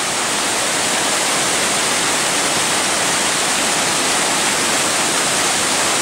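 Small waterfall cascading over boulders into a shallow pool: a steady, full rush of falling water.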